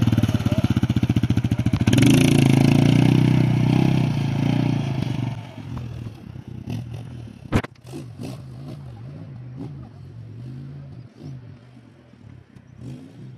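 670 cc ATV engine running hard under throttle, then dropping back to a quieter, uneven low-speed note about five seconds in. A single sharp click comes about halfway through.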